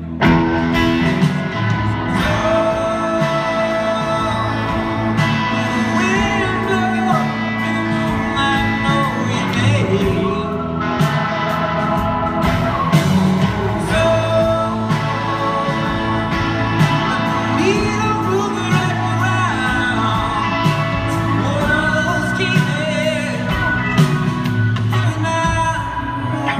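Live rock band playing an instrumental passage between sung verses: electric guitars over bass and drum kit.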